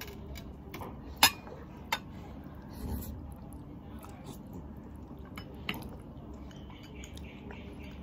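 Wooden chopsticks clicking and scraping against ceramic bowls while noodles are eaten, with a few sharp clinks, the loudest about a second in. Soft slurping of noodles comes near the end.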